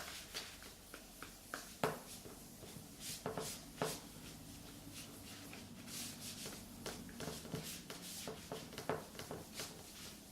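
Dry microfiber cloth wiping a laptop, faint rubbing and rustling with occasional light taps.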